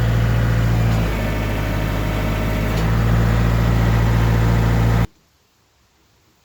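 Kioti DK45SE tractor's diesel engine running steadily, with a slight dip in level for about two seconds in the middle; it cuts off suddenly near the end.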